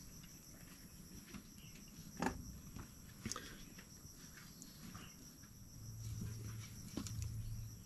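Faint steady chirring of insects such as crickets, with a few scattered clicks. A low steady hum comes in near the end.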